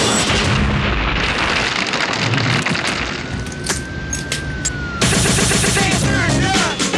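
Advert sound effect of a big block of ice shattering, a loud booming crash that thins into a few sharp clicks and a thin held tone. About five seconds in, dance music cuts in suddenly.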